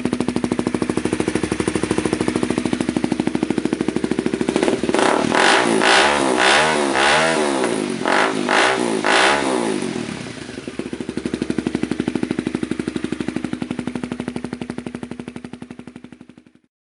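2011 Honda CBR250R's single-cylinder engine idling through a Yoshimura exhaust with the silencer removed, given a run of quick throttle blips from about five seconds in, then settling back to idle before cutting off near the end.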